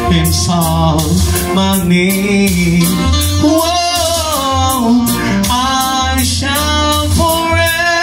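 A man singing into a handheld microphone, holding long notes that glide up and down in pitch, over backing music with a steady bass line and beat.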